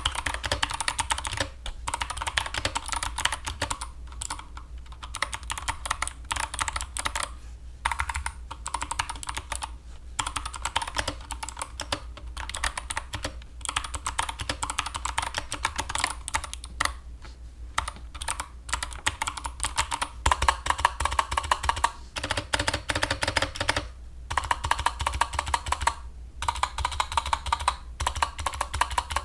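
Fast typing on a Drop CTRL mechanical keyboard with clicky Kailh Box White switches: dense runs of key clicks broken by brief pauses every few seconds.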